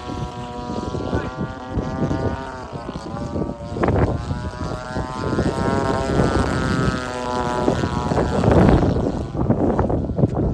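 A 30cc two-stroke gasoline engine drives the propeller of a radio-controlled Extra 300 in flight. Its buzzing note rises and falls in pitch as the plane changes throttle and passes by.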